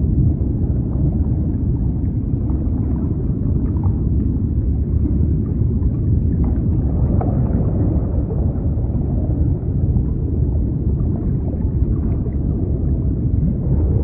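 Steady, deep, muffled rush of the sea, with faint short gurgles here and there over the low rumble and no distinct waves breaking.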